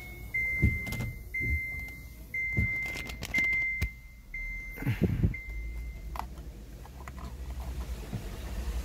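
Kia K3 dashboard warning chime beeping steadily, a high single-pitch tone about once a second, six times, stopping about six seconds in, with clicks and knocks of hands in the car's cabin. A low steady hum comes in about five seconds in.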